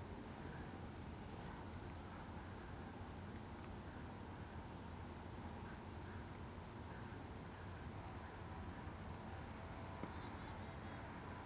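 Crickets trilling faintly and steadily in the background, one continuous high-pitched trill with a few faint higher chirps.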